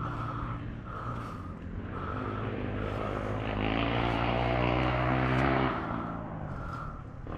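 300cc two-stroke enduro motorcycle engine running at low revs while picking through slow technical terrain, opened up for a couple of seconds around the middle and then eased back off just before the end.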